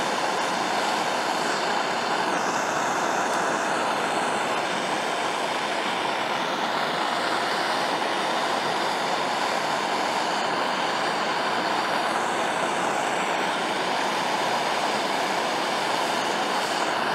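Handheld gas torch flame burning with a steady rushing sound, heating an aluminum outboard skeg for brazing while the joint is still too cool for the rod to flow.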